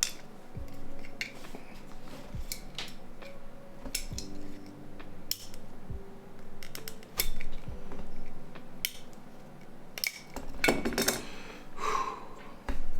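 Small metal and plastic parts of a Nokia 8850 phone and hand tools clicking and clinking against a work surface as the phone is taken apart. The clicks are irregular, with a few louder knocks in the second half.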